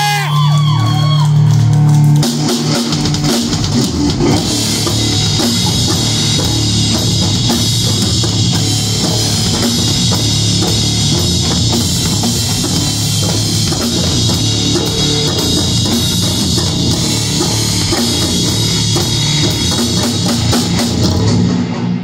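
A live doom metal band plays heavy, slow, distorted electric guitar and bass chords. A full drum kit comes in hard about two seconds in, and cymbals wash over the rest. The music stops abruptly at the very end as the song finishes.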